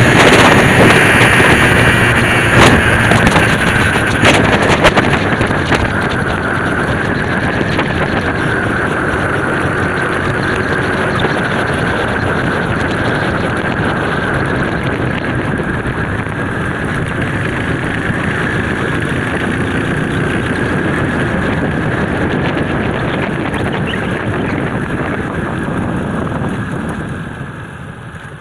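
Honda XRM 125's single-cylinder four-stroke engine running steadily as the motorcycle rides along, mixed with wind rush on the microphone. The sound drops off sharply near the end.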